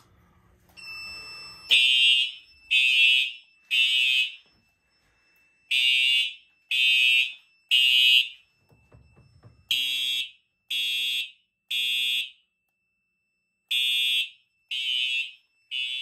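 Fire alarm system horns going off in the temporal-3 evacuation pattern, three short blasts then a pause, repeating, after a system smoke detector is tripped in a test. The blasts start about two seconds in, and a fainter steady high tone carries on between them.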